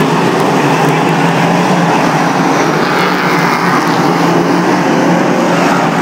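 A pack of speedway race cars on a dirt oval, their engines running hard together in a loud, steady, unbroken din.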